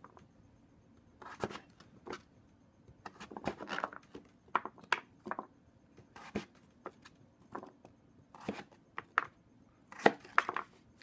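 Chef's knife cutting raw butternut squash into cubes, the blade knocking on a wooden cutting board in irregular clusters of chops with short pauses between, the loudest chops just after ten seconds in.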